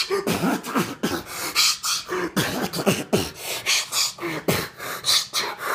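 A person beatboxing: a steady rhythm of mouth-made hissing hi-hat strokes and low falling kick sounds, between chanted lines of a song.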